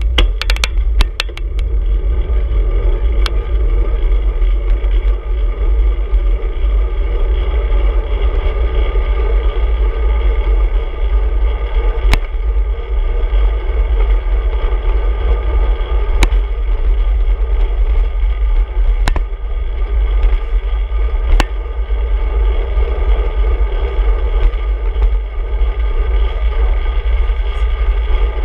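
Wind buffeting and road rumble picked up by a camera mounted on a road bike's handlebars while riding along a city street, a steady loud rush with a few sharp clicks from bumps in the ride.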